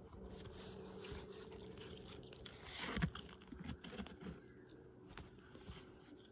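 Soft scuffling, rustling and small crunchy clicks as a Sphynx cat plays with a ribbon on a fleece blanket. A louder rustling burst comes about three seconds in, all over a faint steady hum.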